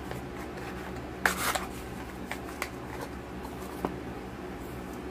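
Skincare product packaging being handled and opened: a short rustling scrape about a second in, then a few light clicks and taps.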